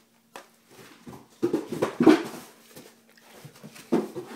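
Great Dane whining and whimpering in short, irregular bursts, loudest about two seconds in.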